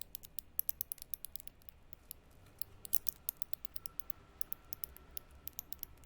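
Bat calls: a rapid, irregular series of short, high-pitched clicks and chirps, several a second.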